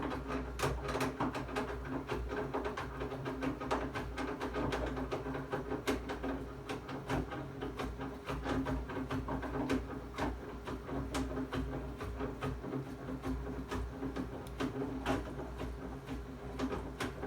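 Baxi Compact 24 kW gas boiler running with a steady hum and rapid, irregular metallic ticking and knocking, several clicks a second. The owner puts the knocking down to the four nuts that hold the burner to the heat exchanger being overtightened.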